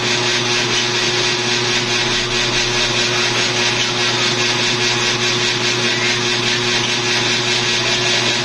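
Steady, loud whirring machine noise with a constant low hum and a steady tone, unchanging throughout.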